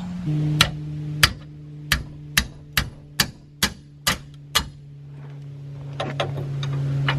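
Mallet tapping on a 9/16 wrench to break loose a seized rear brake caliper mounting-bracket bolt: about nine sharp taps, roughly two a second, then a few lighter clicks near the end. A steady low hum runs underneath.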